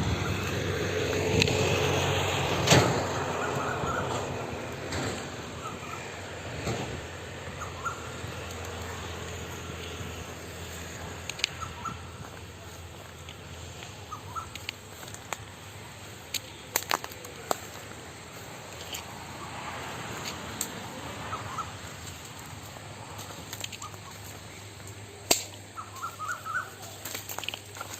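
Outdoor ambience with short, faint bird calls over a steady background hiss, and scattered sharp clicks and knocks, the loudest about three seconds in and near the end.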